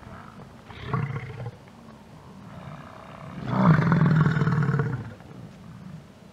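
American bison bull bellowing in the rut: a short low bellow about a second in, then a long, loud, deep bellow starting about three and a half seconds in and lasting over a second.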